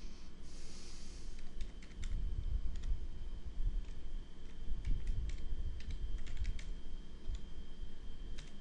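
Computer keyboard typing in irregular keystrokes while login details (agent ID and password) are entered, with a faint steady high tone behind.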